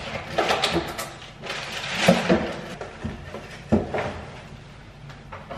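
Household handling noises while food is packed into a hard plastic cooler: irregular knocks and clatter of items being picked up and set down, with rustling of packaging. A sharp knock a little under four seconds in is the loudest.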